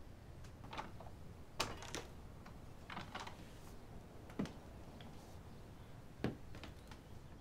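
Scattered light clicks and taps, about ten of them at uneven spacing, over quiet room tone; three sharper knocks stand out, the first about a second and a half in, then near the middle and near the end.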